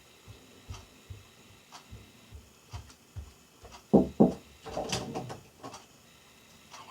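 Java sparrow pecking at pea sprouts: light ticks of the beak, about two a second. About four seconds in come two loud knocks in quick succession, then a short clattering rustle.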